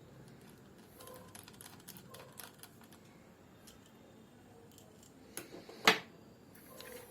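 Faint scattered clicks and taps of a small screwdriver and plastic laptop parts being handled, with one sharp click about six seconds in.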